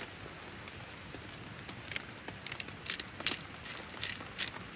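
Pork belly and a sausage sizzling on a wire grill over a wood fire's embers: a steady hiss with sharp crackling pops that come more often from about two seconds in.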